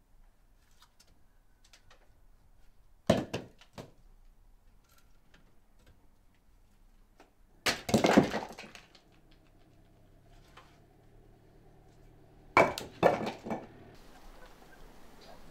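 Sharp knocks and cracks in three short bursts, each a few quick strikes, about five seconds apart.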